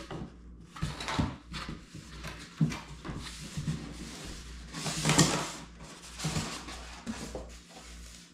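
Cardboard box being opened by hand: flaps and inner cardboard packing rubbing, scraping and knocking in irregular rustles. The loudest is a half-second scrape about five seconds in.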